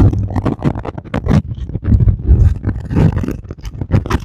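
Strong gusty wind buffeting the microphone: a loud, uneven low rumble that surges and drops, with crackling from the gusts.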